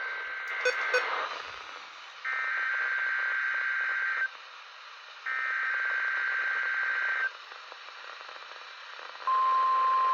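NOAA Weather Radio Emergency Alert System test. The end of one burst of SAME digital header data is followed by two more identical two-second bursts a second apart, and the steady 1050 Hz weather alarm tone starts about nine seconds in. These are the alarm tone signals of a Required Weekly Test.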